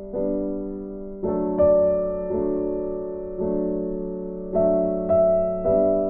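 Slow, gentle background piano music: sustained chords that ring out and fade, a new chord struck about every second.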